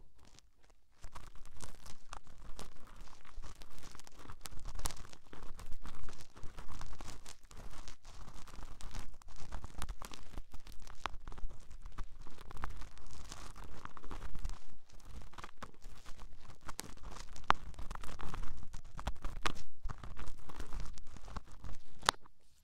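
ASMR ear-scratching sounds: close, crackly scratching and rubbing on the microphone, a dense run of small scrapes and clicks. It starts about a second in and stops just before the end.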